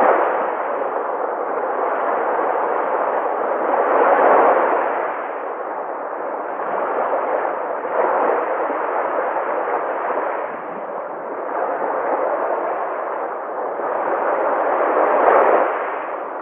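Sea waves washing on a shore: a continuous rush of surf that swells and falls back every few seconds, loudest near the end.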